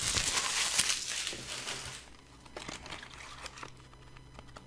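Bubble wrap crinkling as it is pulled off small cardboard packages by hand, dying away about two seconds in, followed by a few faint clicks of the packages being handled.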